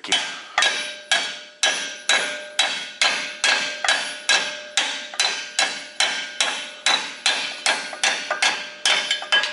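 Hammer striking metal about twice a second in a steady rhythm, each blow ringing, as new sleeves are driven into a semi truck's front brake assembly without the proper driver tool.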